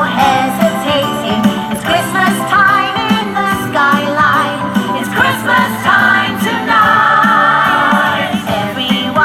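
Festive Christmas pop music with sung vocals and jingle bells over a steady beat, played loud.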